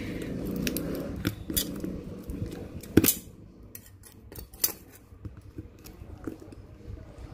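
Scissors snipping and clicking as they work at the wrapping on a cardboard box, cut with one hand. A string of sharp clicks, the loudest about three seconds in, with rustling in the first two seconds.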